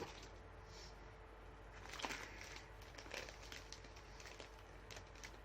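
Near silence: quiet room tone with a few faint crackles, about two seconds in and again near three seconds.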